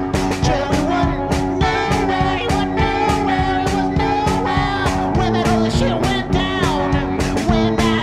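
A rock band plays: drums keep a steady beat under guitar, and a held melody line bends in pitch.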